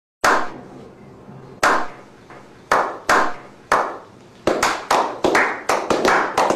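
A slow clap by a small group: single claps about a second apart, each with a short fading echo, quickening to about four claps a second from about four and a half seconds in.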